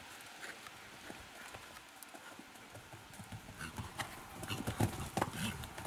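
Cantering horse's hooves thudding on a sand arena, faint at first and growing louder from about three and a half seconds in as the horse comes closer.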